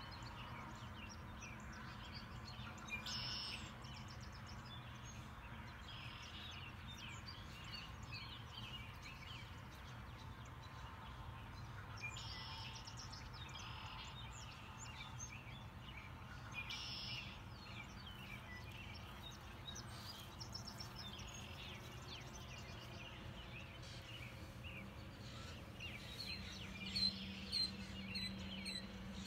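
A mix of wild birds calling and chirping in the early spring morning, many overlapping short calls, with a few louder ones near the end, over a steady low background rumble.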